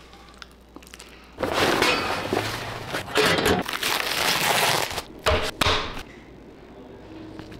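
Plastic wrap being torn and pulled off a foam tray of raw chuck roast, a loud noisy spell starting about a second and a half in, followed by two short sharp clicks.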